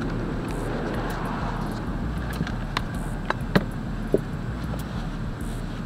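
Motor oil pouring from a bottle into an engine's oil filler, a steady trickle with a few light plastic clicks from the bottle.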